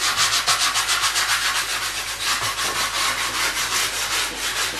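A chunky stick of white chalk rubbed over a freshly spray-painted chalkboard table top in quick back-and-forth strokes, a continuous dry rubbing with each stroke audible. The chalk is being worked over the whole surface to prime the new chalkboard paint.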